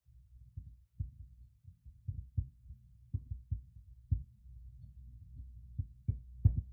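Hands working paper pieces on a craft desk: about ten irregular, muffled low thumps and knocks over a faint low rumble, the loudest near the end.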